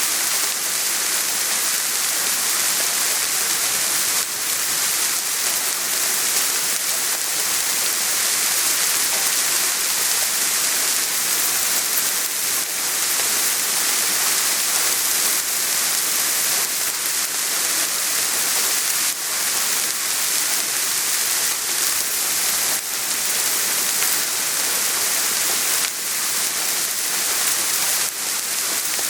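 Steady soft rain falling, an even hiss with faint drop ticks throughout.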